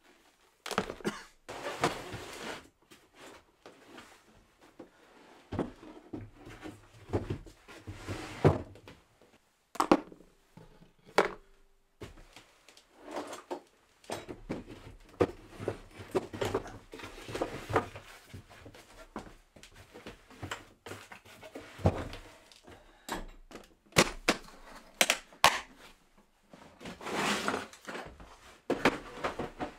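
Cameras and camera gear being set down into wooden OSB drawers and the drawers slid in and out: a string of irregular knocks, thunks and short scrapes of wood and equipment.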